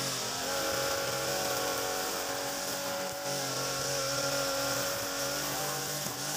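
Backpack brush cutter's Mitsubishi engine running at cutting speed, its nylon trimmer line spinning and whirring through grass. The engine note holds steady, dipping briefly about three seconds in and again near the end.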